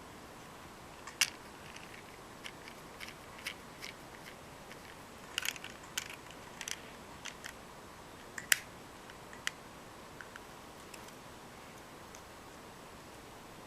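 Scattered small, sharp clicks and taps of a compact digital camera's parts being handled and fitted back together during reassembly, over a steady faint hiss. The two sharpest clicks come about a second in and about eight and a half seconds in.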